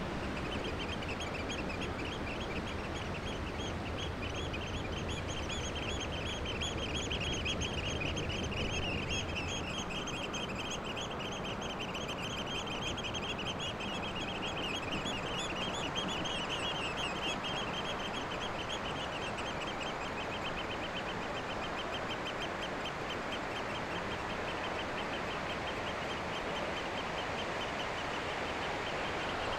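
Outdoor shoreline ambience: a steady hiss of wind and water, with a rapid, high-pitched animal chirring that runs on without a break. A low rumble underneath stops about ten seconds in.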